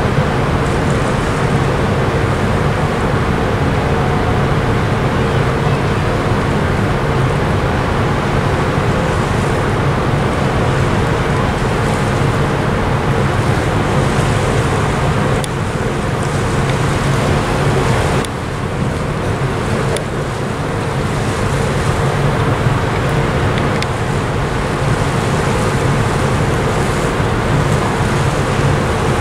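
Steady drone of the cruise ship Enchantment of the Seas' engines and machinery under way, with a constant rush of wind and water. A low hum holds steady, with a fainter, higher tone above it.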